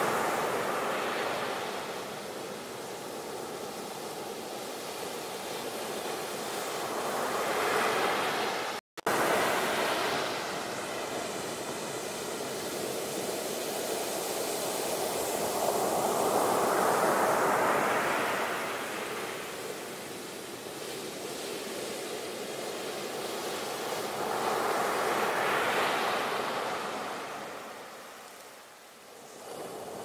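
Sea waves breaking and washing in, a steady hiss of surf that swells and ebbs in slow surges every several seconds. A momentary dropout to silence about nine seconds in.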